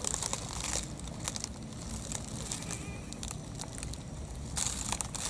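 Tall grass blades rustling and crackling as a baby monkey pushes and climbs through them, in bursts near the start, about a second in, and again near the end.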